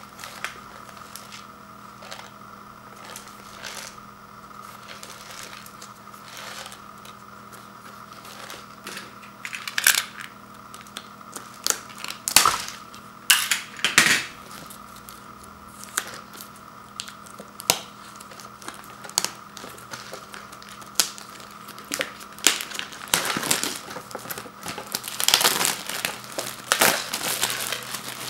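Clear plastic shrink-wrap crinkling and tearing as it is peeled off a paper instant-noodle bowl, in irregular crackles with louder bursts around the middle and again near the end.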